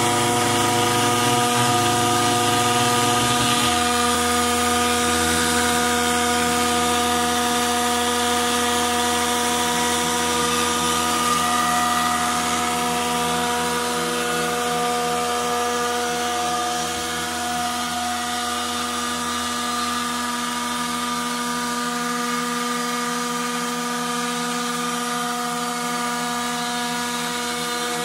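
Router spindle of a homemade CNC machine running steadily at high speed with a whine, its bit engraving lettering into an aluminium plate. A deeper rumble under the whine drops away about three and a half seconds in.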